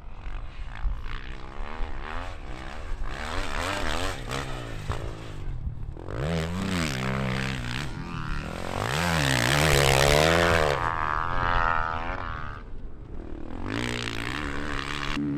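Dirt bike engine revving up and down again and again, its pitch rising and falling with the throttle, loudest about two-thirds of the way through.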